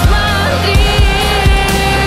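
Music: an instrumental passage of a song, with kick drum beats under long held notes.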